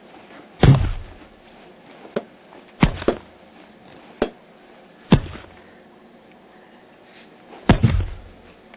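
A series of dull thumps, a second or two apart and some in quick pairs, over a faint steady room background.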